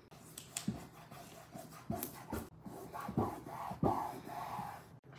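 Chalkboard peel-and-stick vinyl wallpaper being handled and smoothed by hand: irregular soft rustles and rubbing scuffs.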